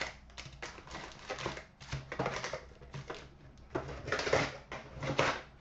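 Trading-card boxes and wrapped card packs being opened and handled: a run of rustles, scrapes and light knocks, busiest about four to five seconds in.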